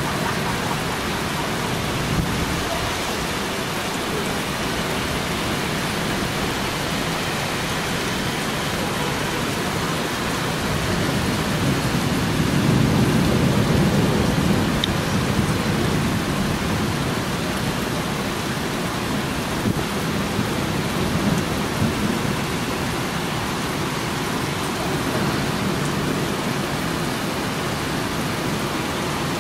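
Heavy rain falling steadily on city rooftops. About halfway through, a low roll of thunder builds and fades.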